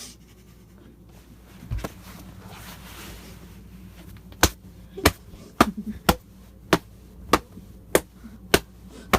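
A dull thump, then from about four seconds in a steady run of sharp smacks, close to two a second.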